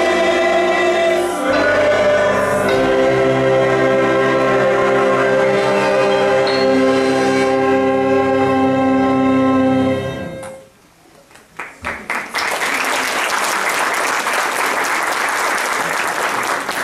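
A choir with orchestra sings the end of a song, moving through a couple of chords and then holding a long final chord that cuts off about ten seconds in. After a short pause the audience applauds.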